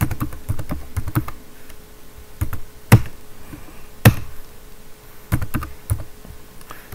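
Computer keyboard typing: irregular keystrokes as a line of HTML is entered, with two louder key presses about three and four seconds in.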